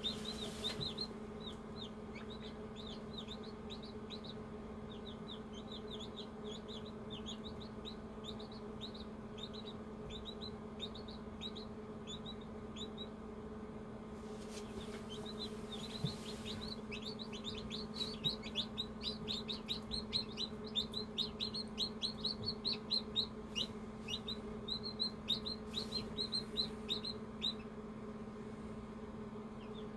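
Newly hatched chicken chicks peeping: a rapid string of short, high chirps, each falling in pitch. They thin out about halfway through, then grow busiest and loudest before stopping near the end. A steady low hum runs underneath.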